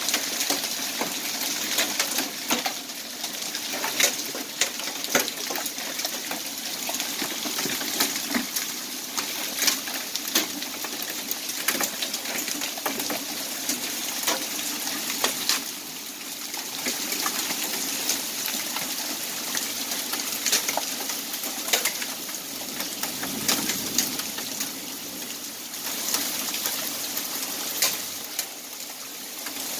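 Hail falling hard onto concrete pavement: a steady rushing noise with many sharp clicks of single hailstones striking and bouncing throughout.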